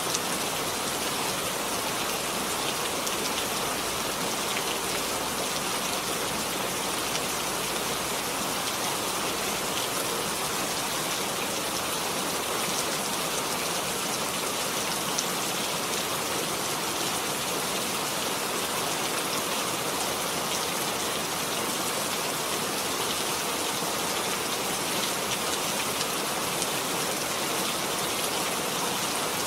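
Steady rainfall, an even hiss of rain with scattered individual drops ticking on a surface.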